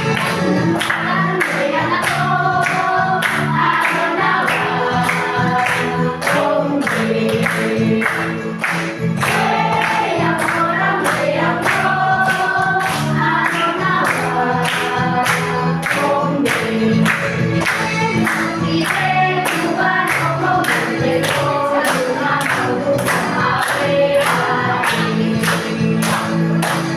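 A song played through a Bluetooth speaker, with many voices singing and a steady beat of sharp strokes about twice a second.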